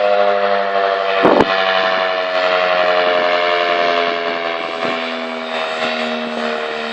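Outdoor tornado warning siren sounding a steady multi-tone wail that slowly drops in pitch and fades a little as it winds down. There is a brief sharp crackle a little over a second in.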